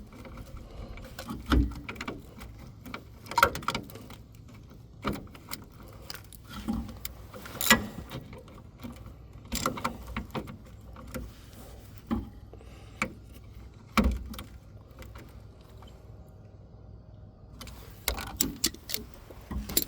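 Irregular metallic clinks and knocks of hand tools and parts being handled while working on a van's shock absorber mounting, with a few sharper, louder knocks among them.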